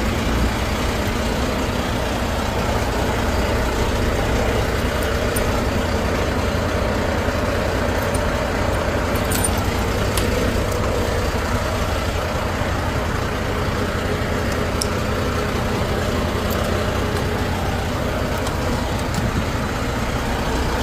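Semi-truck diesel engine idling steadily, with a few light clicks partway through.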